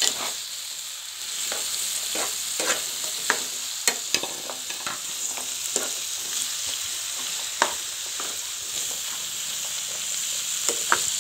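Sliced bitter gourd with tomato and onion sizzling steadily in oil in a frying pan while being stirred, the white spoon scraping and knocking against the pan at irregular moments.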